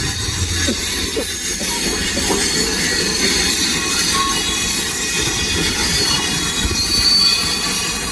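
Metra Electric commuter train running past the crossing, a loud, steady noise of wheels on rail.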